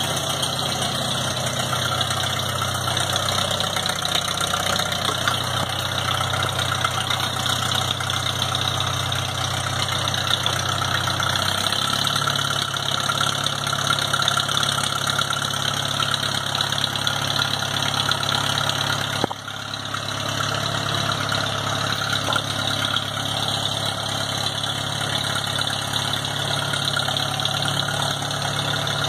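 1948 Farmall M tractor's four-cylinder engine idling steadily, warming up just after a cold start at about 20 °F. Its note steps up slightly about twelve seconds in.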